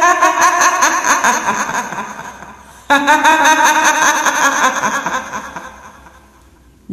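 Kuntilanak ghost laugh effect: a woman's cackling laugh, heard twice, each burst starting loud and fading away over about three seconds.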